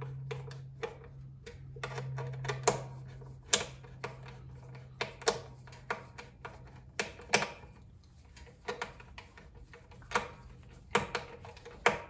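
Screwdriver working the screws of a metal wiring-box cover on an electric compressor motor, giving irregular sharp clicks and ticks of metal on metal. A low steady hum sits underneath and fades out partway through.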